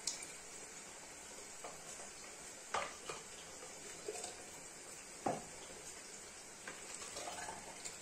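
A stainless steel ladle scooping tomato-and-eggplant sauce from a pot and pouring it through a plastic funnel into a glass jar, with a few sharp clinks of the ladle against the pot and funnel: one at the start, two close together about three seconds in, and one about five seconds in. Between them, quieter scraping and the wet sound of thick sauce pouring.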